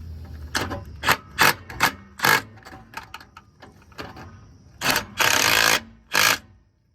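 Ratchet wrench clicking in short, separate strokes on the starter mounting bolts of a small-block Chevy as they are tightened by hand. There are about five quick strokes in the first couple of seconds, then a longer run of clicking about five seconds in.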